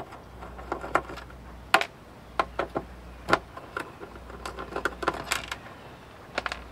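Small metal clicks and clinks at an irregular pace from a hand nut driver working hex standoffs and screws off a circuit board, with two sharper clicks about two and three and a half seconds in.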